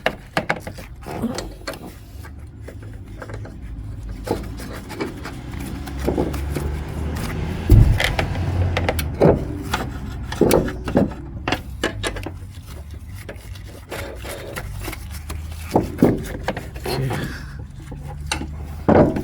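Irregular scrapes, rubs and knocks of a front shock absorber strut being worked into place on the suspension and its bolt fitted, with one loud knock about eight seconds in, over a steady low hum.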